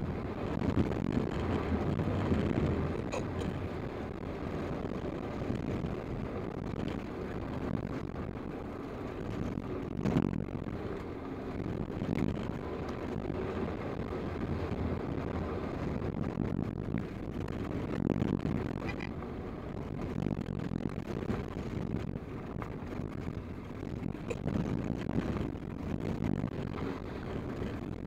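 Toyota Land Cruiser driving a gravel road, heard from inside the cab: a steady rumble of tyres on gravel and engine, with a few short knocks from bumps, the sharpest about ten seconds in.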